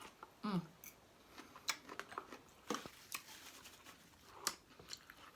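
A person chewing a mouthful of food close to the microphone, with scattered wet mouth clicks and smacks. There is a short hum of the voice about half a second in.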